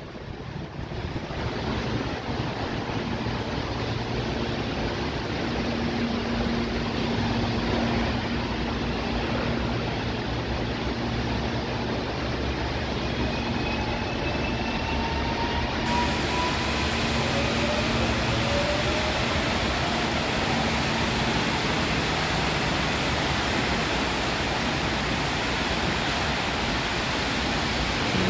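Electric commuter train running, a steady rushing noise with a low hum and faint rising whines about halfway through.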